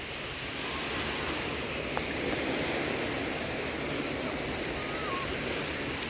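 Sea surf washing onto a sandy beach: a steady rush of waves.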